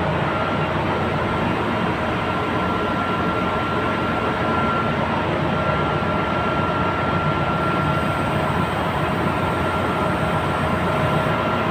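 Steady engine-room machinery noise from running auxiliary plant, with a steady high tone over it.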